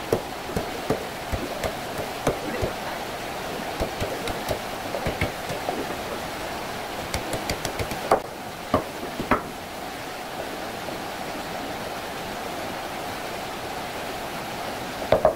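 A large kitchen knife chopping a big cod on a wooden cutting board: irregular sharp knocks, the loudest three about eight to nine and a half seconds in. After that only a steady hiss remains.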